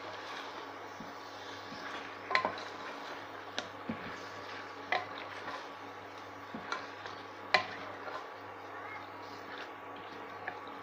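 Chicken masala being stirred in an aluminium pressure cooker: the spoon scrapes through the food and clinks sharply against the pot several times, loudest about two and a half and seven and a half seconds in, over a steady sizzle.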